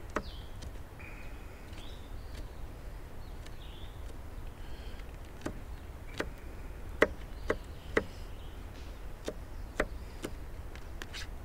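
Kitchen knife slicing a sweet pepper on a plastic cutting board: about ten irregular sharp taps of the blade on the board, most of them in the second half.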